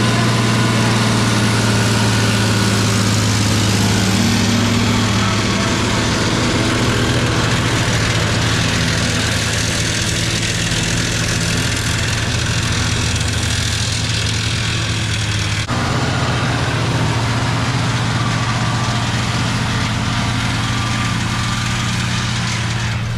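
Farm tractor engine idling steadily, with a low, even hum; the sound shifts abruptly about sixteen seconds in.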